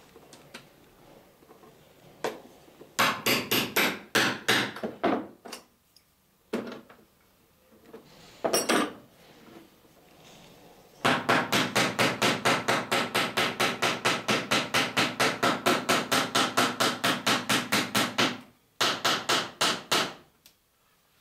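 Small hammer peening the snipped end of a copper boat nail over its rove, with a dolly held against the nail head on the other side, to set a clinker-plank rivet. It comes as short runs of light, quick taps, then a long even run at about six taps a second.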